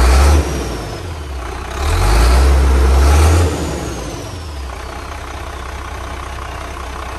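Class A motorhome's chassis engine revved twice by hand at the throttle linkage, each rev a brief deep rise with a faint high whistle falling away after it, then settling back to a steady idle from about four seconds in.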